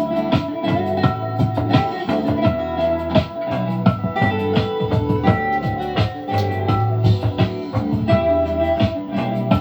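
Music with guitar and a steady drum beat, played through an Akai SS023A-X10 speaker.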